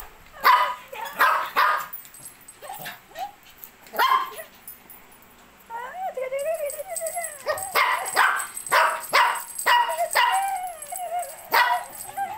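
Shih Tzus barking in sharp, repeated yaps, with a wavering whine for about a second and a half near the middle, then a quicker run of barks.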